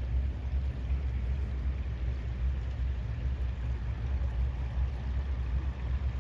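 Wind buffeting the microphone: a steady low rumble that flickers in strength, with a faint hiss above it.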